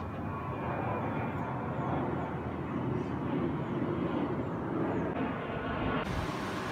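Jet airliner passing overhead: a steady broad rumble that grows louder over the first few seconds. The sound changes abruptly near the end.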